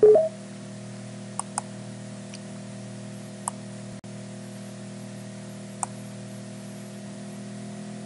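Computer mouse clicking a few times over a steady low electrical hum and hiss, with a brief loud tone right at the start.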